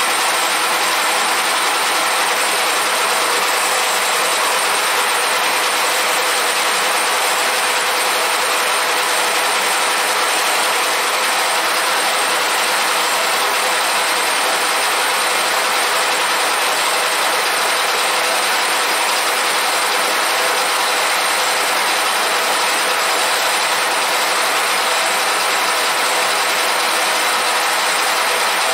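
Cylinder-head surfacing machine running steadily, its rotating cutter skimming the deck face of a VW 1.9 TDI cylinder head to flatten it.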